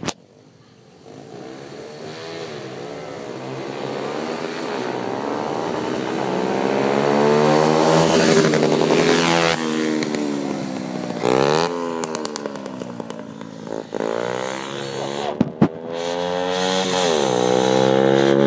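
Small motorbike engines, among them an 88cc fuel-injected Honda Monkey, revving hard through the gears in a drag race. The engine note climbs in steps and falls away about nine and a half seconds in. After a couple of sharp knocks it climbs again near the end.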